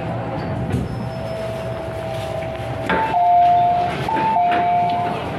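A two-note electronic chime sounds twice inside an MTR M-Train, a higher note stepping down to a held lower one. It is the kind of chime that comes before an on-board announcement. Beneath it, the train's running noise goes on with a steady whine.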